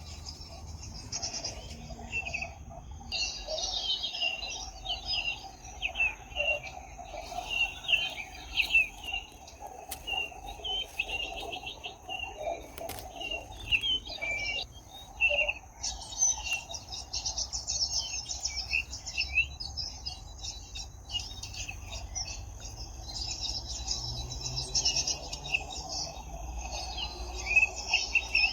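Several birds chirping and twittering with many quick calls, over a steady high insect drone.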